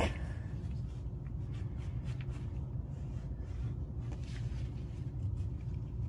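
Low steady hum with a few faint, soft rustles and scrapes, like light handling.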